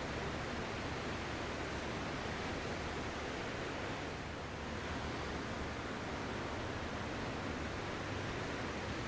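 Ocean surf: a steady wash of breaking waves that eases slightly about four seconds in.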